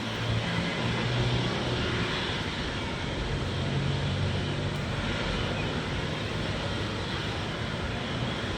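Jet engines of a Boeing 777-200 airliner passing on approach: a steady, broad rumble with a low hum underneath.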